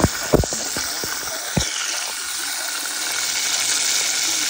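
Breaded chicken pieces frying in hot oil, a steady sizzle that grows a little louder in the second half. A few sharp knocks sound in the first second and a half.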